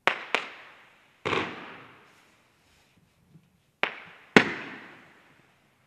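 Profi Line 8.10 20-shot firework battery of golden horse-tail bouquets firing five shots: a quick pair, a single about a second later, then another quick pair after a pause of over two seconds. Each is a sharp report that dies away over about a second, and the last is the loudest.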